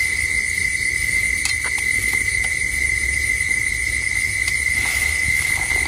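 Insects trilling steadily in one unbroken high tone, over a low rumble, with a few faint clicks.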